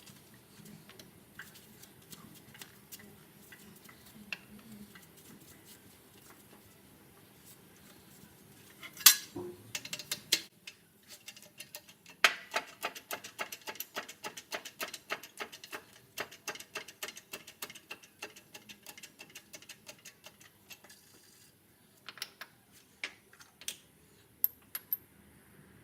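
Metal hand tools working on a car's wheel hub during a hub-bearing replacement. A sharp metal knock comes about nine seconds in. Then comes a fast, even run of ringing clicks lasting about eight seconds, and a few separate clicks near the end.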